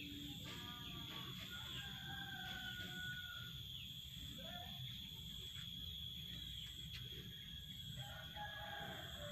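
Faint chicken calls, a few short calls and one longer held call spread through, over a steady high-pitched whine.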